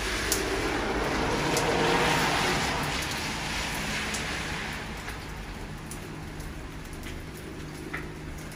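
Steady rain falling on a wet street and garden, an even hiss with a few sharp drips. A louder swell of hiss rises about two seconds in and fades away.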